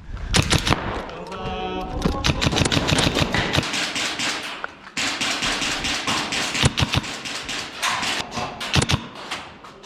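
Airsoft guns firing: rapid runs of sharp clicks from automatic fire, with a few louder single shots later on.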